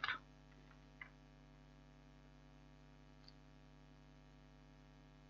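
Near silence: a faint steady electrical hum, with one faint tick about a second in.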